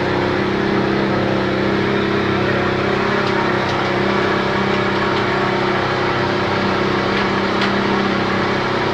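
Speedboat engine running steadily at an even pitch as the boat motors in toward the dock, with water and wind noise.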